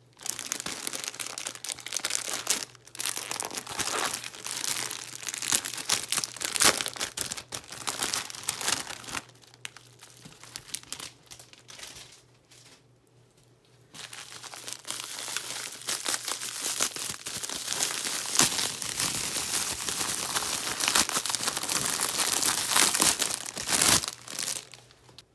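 Plastic packaging, bubble wrap and clear plastic bags, crinkling and rustling as a parcel is unwrapped by hand, with a quieter lull of a few seconds about halfway through.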